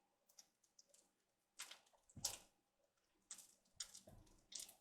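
Near silence broken by a few faint, short clicks and scrapes of eating from a dish with a metal spoon.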